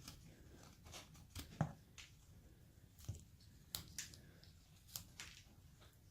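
Carving knife slicing into basswood: about a dozen short, sharp cuts and scrapes at uneven intervals.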